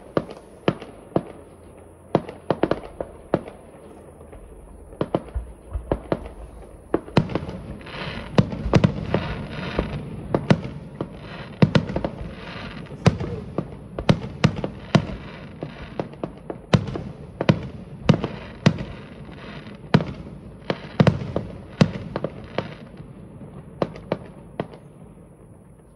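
Fireworks display: a long run of sharp bangs from exploding shells, coming thick and fast from about seven seconds in with dense crackle between them, then thinning out near the end.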